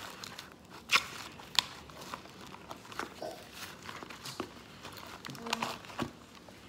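Cloud slime made with instant snow being kneaded and pulled by hand in a bowl: irregular sticky crackles and crinkly snaps, the sharpest about one and one and a half seconds in. The slime is still stiff from too much activator while more snow is worked in.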